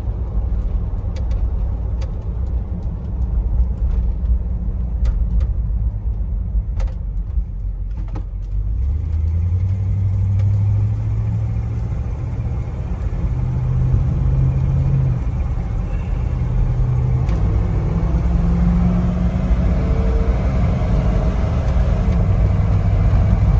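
1990 Jeep Grand Wagoneer's AMC 360 V8 and road rumble heard from inside the cabin, cruising at first, then accelerating under heavy throttle from about nine seconds in. The engine note rises, falls back as the automatic shifts up, and rises again.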